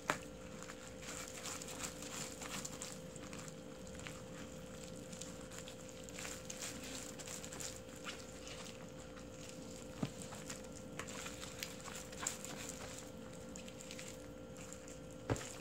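Rubber-gloved hands squishing and rubbing chili seasoning paste into salted napa cabbage for kimchi: irregular wet clicks and soft smacks, with a few louder knocks, one about ten seconds in and another near the end. A steady hum runs underneath.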